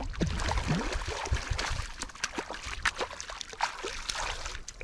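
Creek water splashing and trickling with many small irregular splashes, as a hooked trout is played in close at the surface.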